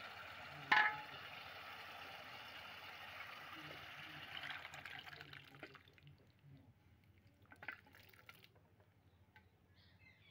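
Rajma masala sizzling in hot oil in a kadai, with a sharp metal clank about a second in. Boiled kidney beans and their cooking water are then poured in from a steel pot: the sizzle swells briefly and dies away about halfway through as the liquid quenches the oil. A few light clinks follow.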